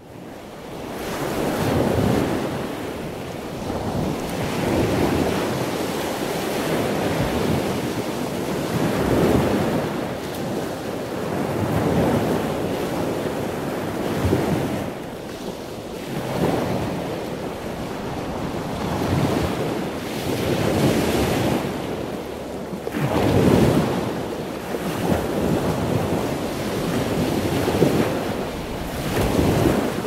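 Surf washing onto a sandy beach, swelling and ebbing every two to three seconds, with wind on the microphone.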